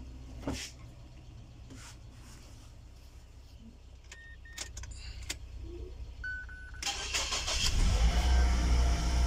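Mazda Premacy cold start: a few quiet clicks and a short electronic beep, then about seven seconds in the starter cranks and the engine catches, running at raised cold-start revs.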